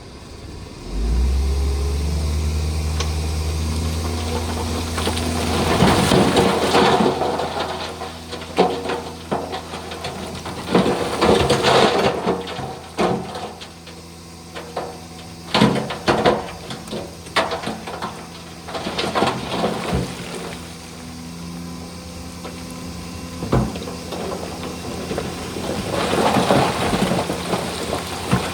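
Shantui DH17 bulldozer's diesel engine picks up revs about a second in and runs under load. Repeated sharp knocks and clatter come from the steel tracks and the stone being pushed.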